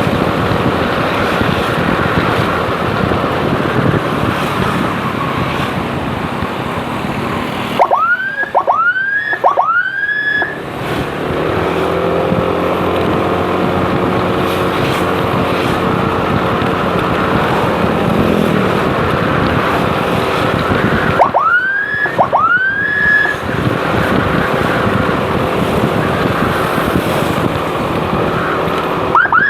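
Steady motorcycle riding noise with wind on the microphone, broken by an emergency escort siren giving short rising whoops: three in quick succession about eight seconds in, two more later, and a rapid string of yelps at the very end.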